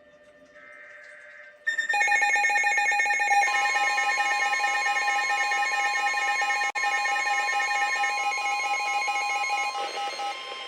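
NOAA Weather Radio warning alert: a one-second digital SAME header burst of paired beeping tones, then from about two seconds in a loud alert alarm of several steady tones with a fast warble, whose tones shift near the end.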